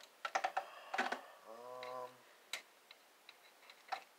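Wire cutters snipping through the wires around a CRT monitor's tube neck and yoke: sharp clicks, a quick cluster near the start, then single snips spaced further apart.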